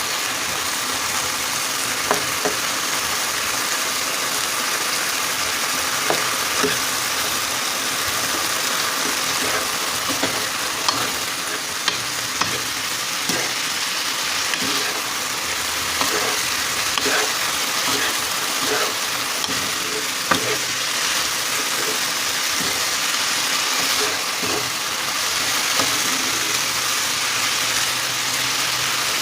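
Food sizzling in hot oil in a pan as it is stirred, with a steady frying hiss and irregular clicks and taps of the spoon against the pan.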